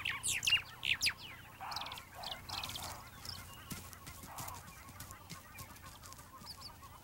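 Birds calling: a busy run of short, falling whistled calls in the first three seconds, mixed with a few hoarse, lower calls, then fading to fainter scattered calls.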